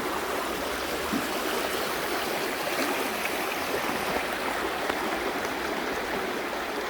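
Shallow river rapids running fast over a stony bed, a steady rushing of water with no let-up.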